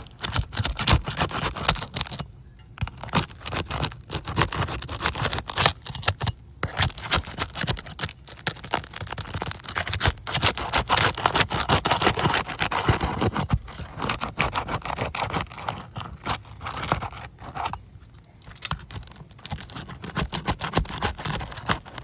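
Asphalt roof shingles being pried up to break their sealant strip: a long stretch of irregular scraping and crackling with many sharp clicks, pausing briefly a few times.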